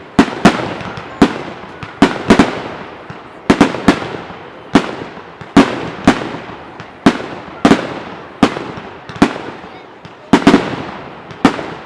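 Aerial fireworks exploding in a display: a run of sharp bangs, one or two a second, each trailing off in a fading rumble of echo.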